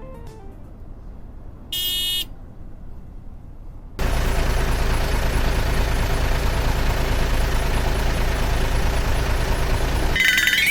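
A short electronic beep, then a loud, steady vehicle running sound, engine rumble with road noise, that starts abruptly about four seconds in and cuts off near the end, where a higher pitched tone sounds.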